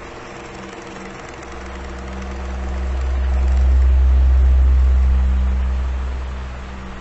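Electric fan running with a steady motor hum and whoosh of air. A low rumble of air swells from about a second and a half in, peaks near the middle and fades before the end.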